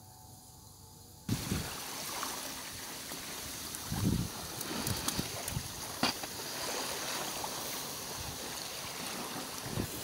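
Faint background at first, then from about a second in a steady rush of wind and lake water on the microphone, with a few low thumps of wind buffeting.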